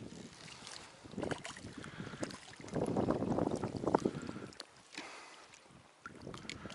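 Water sloshing and splashing in irregular bursts, with small knocks, from someone wading. The loudest burst is about three seconds in.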